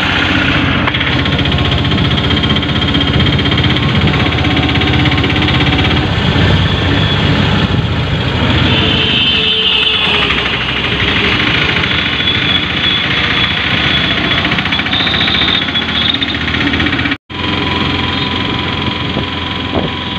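Auto-rickshaw engine running steadily as the three-wheeler drives along, heard from inside the passenger cabin. The sound drops out for an instant near the end.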